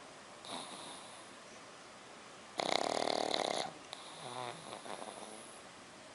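A sleeping puppy snoring: a faint breath, then a loud buzzing snore about two and a half seconds in that lasts about a second, followed by a softer, wavering breath out.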